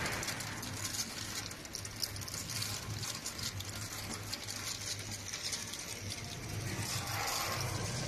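Dry snack chips pouring from a plastic basket and pattering as they land in a stainless-steel hopper and on an inclined cleated conveyor, over a steady low machine hum.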